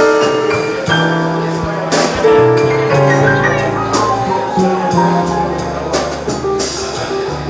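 Live jazz combo playing an instrumental passage: sustained chords over a moving bass line, with drum and cymbal hits keeping time.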